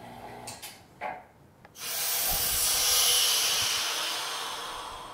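The small vacuum pump's faint hum ends with a click about a second in. Just under two seconds in, air rushes back into the stainless vacuum pot through its release valve with a loud hiss that fades slowly over about three seconds as the vacuum is let off.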